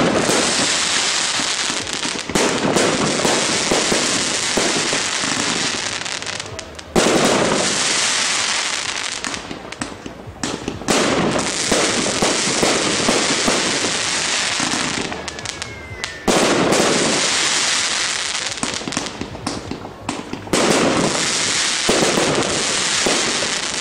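Aerial fireworks shells bursting: about five loud bursts a few seconds apart, each followed by a dense crackle that dies away before the next.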